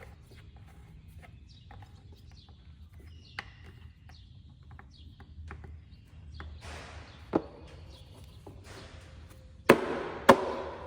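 Scattered clicks and knocks of hands and tools at work, with two loud sharp knocks about half a second apart near the end that ring briefly.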